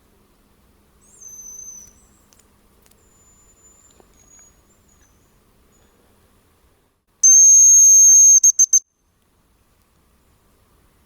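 Hazel grouse whistling: a faint, distant thin falling whistle about a second in and a thin high whistle after it, then a loud, close hazel grouse decoy whistle, one long steady high note that breaks into a few short notes at the end.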